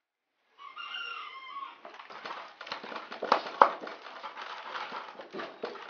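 A short pitched call, likely a backyard hen, about half a second in. Then a wooden pestle crushes and grinds fresh tomato pieces against an earthenware grinding bowl: a rapid run of wet scraping and knocking, with two sharper knocks around the middle.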